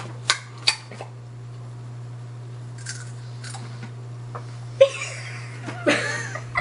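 Fingernails clicking on the pull tab of a steel coffee-with-milk can, then the tab cracking open sharply about five seconds in, followed by laughter. A low steady hum runs underneath.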